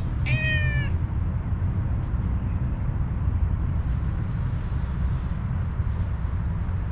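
A cat gives one short meow that falls slightly at its end, just under a second in, over a steady low rumble.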